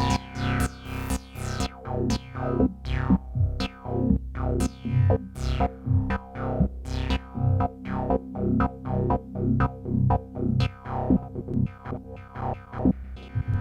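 Behringer DeepMind 12 analog polysynth playing a preset in a steady rhythmic pattern. Each note has a bright top that sweeps down quickly. A drum-machine beat runs underneath.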